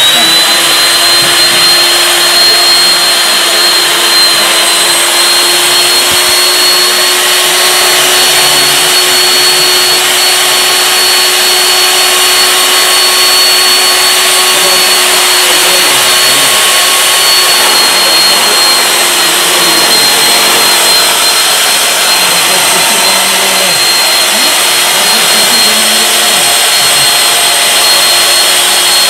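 RIDGID B-500 pipe beveling machine running steadily at full speed with a high motor whine, its cutter head beveling the end of a steel pipe.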